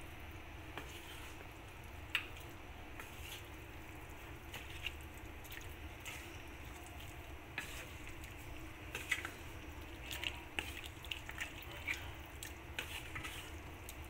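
Wooden spatula stirring chunks of mutton in onion masala in a pan: soft wet squishing with scattered light clicks of the spatula against the pan, over a low steady hum.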